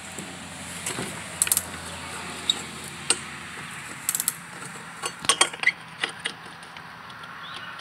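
Scattered light metallic clicks and clinks of a hand tool and small parts being handled on a leaf blower's plastic and metal housing, over a faint steady low hum.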